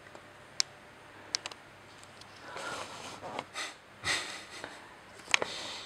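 Warthogs snuffling and snorting as they root and feed on fallen marula fruit, with a few sharp clicks in the first second and a half and short noisy breaths in the second half.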